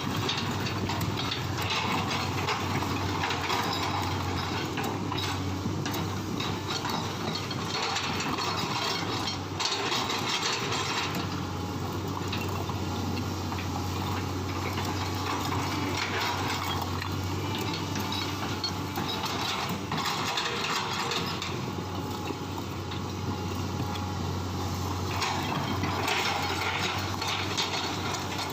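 Excavator engine running steadily, with irregular metallic clanks and rattles from the machine as it works.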